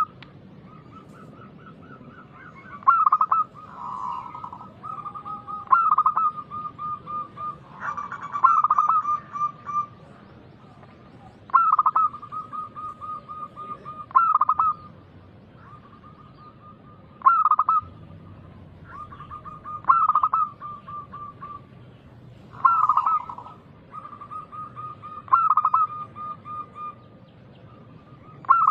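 Zebra dove (perkutut) cooing over and over. Runs of quick staccato coos stay at one pitch, each phrase ending in louder accented notes, about every three seconds.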